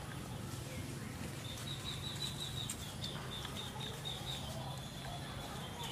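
A fast run of short, high chirps from a small animal begins about a second and a half in and keeps going, over a steady low hum.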